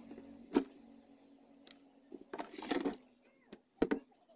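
Hands handling the wiring inside an opened CRT TV chassis: a sharp click about half a second in, a short clatter around the middle and another sharp click near the end, over a low steady hum that stops about four seconds in.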